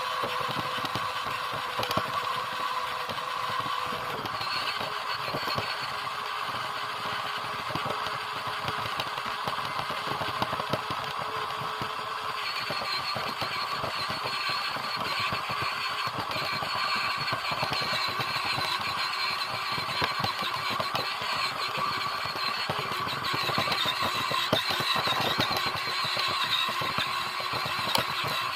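Radio-controlled car running, heard from a camera mounted on it: a steady motor whine over a rough, rattling drivetrain and wheel noise. The whine's pitch steps down about four seconds in and shifts again about twelve seconds in as the speed changes.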